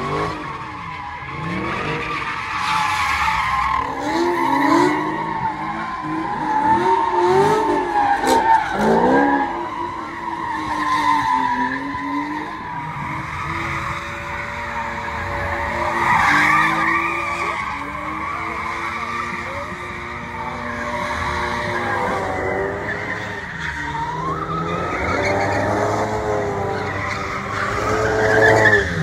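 Car doing doughnuts: tyres squealing in a long, wavering screech while the engine revs rise and fall.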